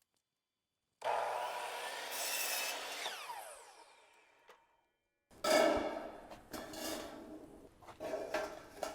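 Power saw cutting a small wooden piece, its motor pitch falling as it winds down. A few seconds later come short irregular scraping and rubbing sounds as the wooden divider is pushed into a rain gutter to test the fit.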